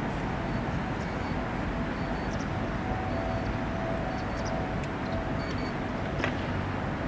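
Steady outdoor background noise with a low rumble. A faint steady tone runs from about a second in until about five and a half seconds, and there are a couple of faint ticks near the end.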